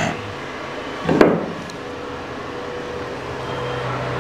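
Two knocks of wood on wood, the second and louder about a second in, as a wooden block is set down on the CNC router's wooden table, over a steady low hum.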